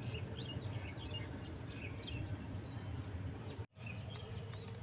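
Faint birds chirping in quick short calls over a low steady hum, with the sound cutting out for a moment near the end.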